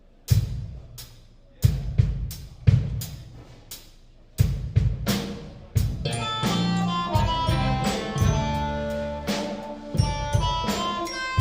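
Live rock band opening a song: a few separate loud drum-kit hits with long ringing decays, spaced out over the first few seconds. About six seconds in, the full band comes in, guitar chords sounding over the drums.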